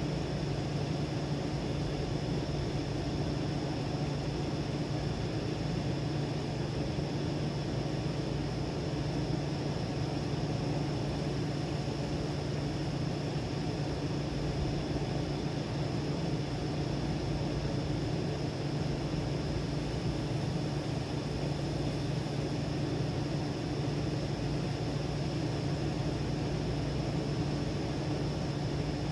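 A steady low hum with a hiss over it, unchanging throughout, with no distinct events.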